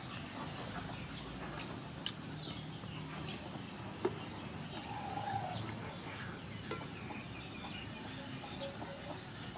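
A metal spoon clinks against a ceramic bowl twice, about two and four seconds in, while a child eats. Faint bird calls sound in the background.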